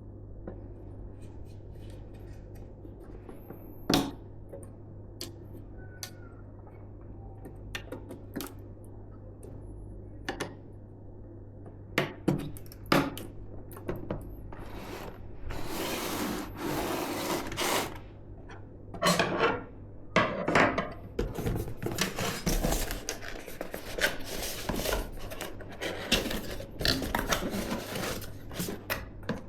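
Hands handling PC parts and their packaging: scattered sharp clicks and taps, then from about halfway on, longer bouts of rustling and scraping, over a steady low hum.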